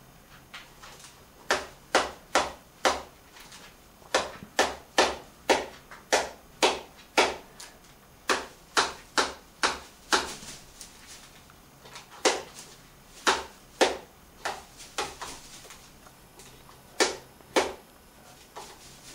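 A crow pecking food out of a metal tin, its beak striking the tin in a run of sharp, irregular taps, often two or three in quick succession, with short pauses between bouts.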